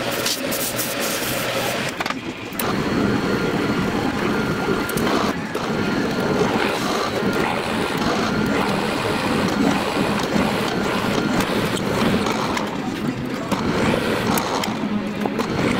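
A wood lathe runs with a tool cutting the spinning wooden shift knob, then, after a change about two seconds in, a drill press runs steadily while its bit bores into the top of the wooden knob.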